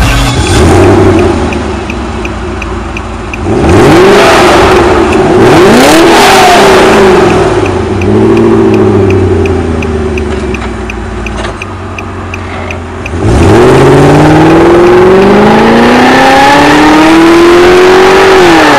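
A car engine revving: it runs fast and steady at first, blips up and back down several times, then from about two-thirds of the way in climbs in one long rev that drops off at the end.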